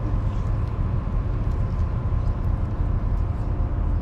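Steady low drone of a large ship's engines and machinery heard on deck, with a faint steady whine above it.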